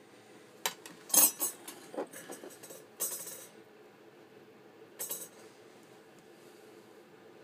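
Steel ruler being set down on a steel knife blade, clinking metal on metal, with a few light knocks of handling on a wooden bench. A quick cluster of clinks in the first three and a half seconds, the loudest about a second in, and one more about five seconds in.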